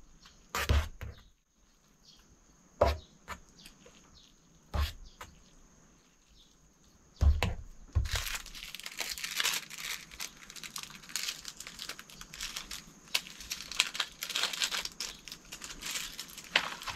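Small plastic seasoning sachets being handled: a few separate sharp knocks in the first half, then from about eight seconds in a continuous crinkling and tearing of the plastic as the sesame sachet is opened and emptied over the noodles.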